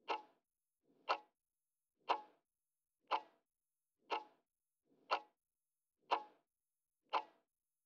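Countdown timer sound effect: a clock ticking once a second, eight short ticks with silence between them.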